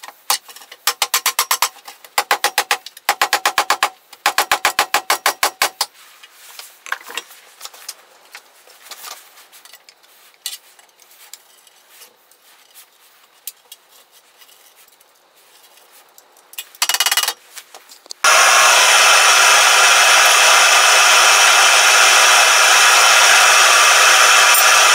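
Short runs of quick rasping strokes with a few handling knocks, then from about two-thirds in a gas burner firing into a small firebrick forge, a loud steady rushing hiss as the forge heats for hardening the foil-wrapped blade.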